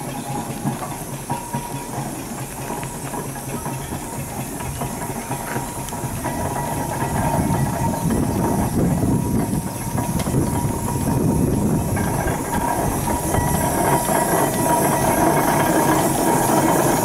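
Steam road vehicle working past with hissing steam and mechanical running noise, growing steadily louder from about six seconds in as it draws near.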